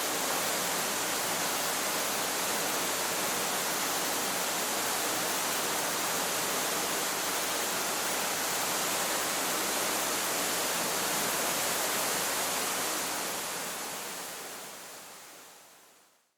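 Waterfall rushing, a steady even hiss that fades out to silence over the last few seconds.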